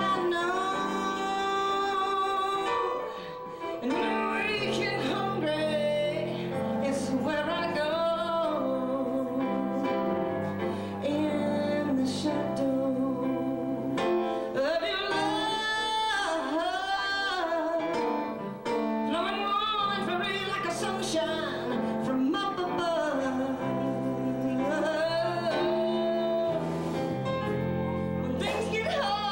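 Live band playing, with keyboard, guitars, bass and drums, while a woman sings lead in long held notes with a wavering vibrato.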